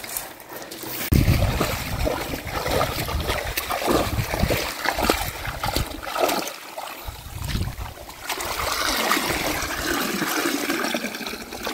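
Muddy water splashing and trickling as a mesh scoop net is swept through shallow water and lifted, the water draining out through the mesh in irregular rushes.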